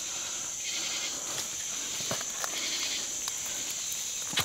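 Steady high-pitched drone of a night insect chorus in the swamp, with a few faint clicks and rustles of the dead pig being handled in the vegetation, the loudest near the end.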